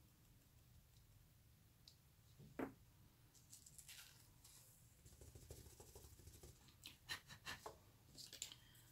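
Faint rustles and light clicks of embossing powder and a card being handled on a plastic sleeve, as loose powder is tipped off a stamped card, with one soft knock about two and a half seconds in.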